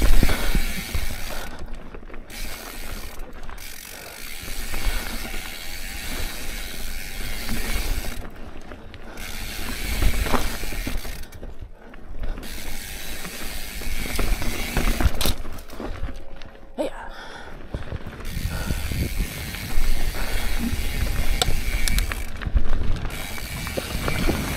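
Mountain bike's rear freehub ratcheting while coasting down rocky singletrack, its steady clicking stopping for short stretches several times. Under it, the tyres rumble over dirt and rock and the bike rattles.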